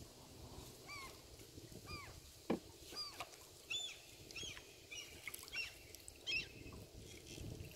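Birds calling: a string of short, arched calls, roughly one or two a second, some coming close together in the middle.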